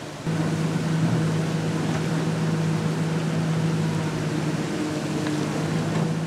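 A Komatsu PC300LC excavator's diesel engine runs with a steady low hum, over the even rush of a swollen brook. It starts suddenly a moment in.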